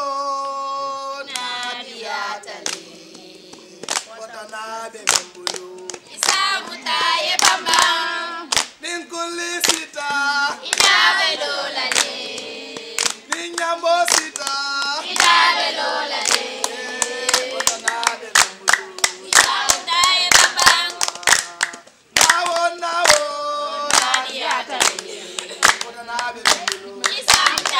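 A group of people singing together with hand clapping; the clapping turns dense and steady after about five seconds.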